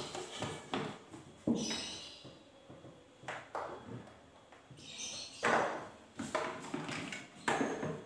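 Plastic and metal fridge parts being handled inside a freezer compartment: irregular knocks and rattles, roughly one a second, each dying away quickly.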